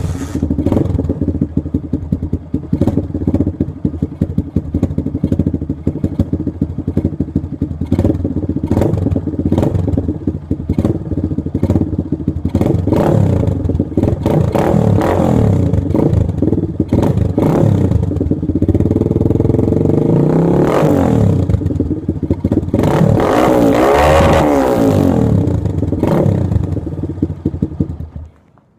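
A 2004 Honda CRF150F dirt bike's four-stroke single-cylinder engine with a BBR full exhaust, running at idle with frequent sharp crackles. In the second half it is revved several times, its pitch rising and falling with each blip of the throttle.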